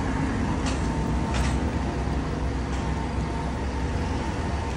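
Steady low rumble of road traffic, vehicle engines running along the street, with a faint steady hum and a couple of faint ticks.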